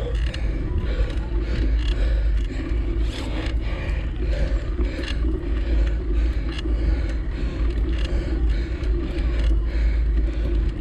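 Bicycle rattling and clicking on a rough climb, with frequent short clicks over a steady low rumble.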